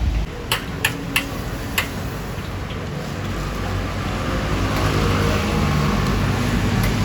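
A vehicle engine running and growing louder as it draws near, after a few sharp clicks in the first two seconds.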